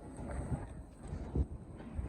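Wind buffeting the microphone in irregular low gusts over faint background rumble, with a faint steady high whine.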